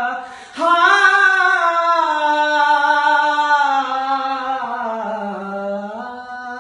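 A man singing a Punjabi song unaccompanied, drawing out one long note: after a short breath about half a second in, the note starts high and slowly sinks in pitch over several seconds, closing the song.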